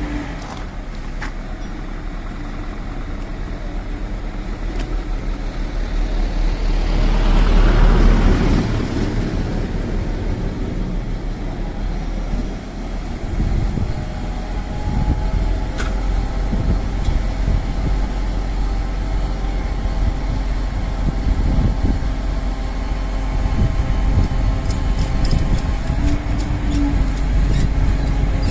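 Motor vehicle engine idling steadily, with a passing vehicle swelling up and fading away about eight seconds in.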